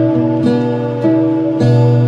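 Background music: a gentle melody of pitched notes, a new note starting every half second or so.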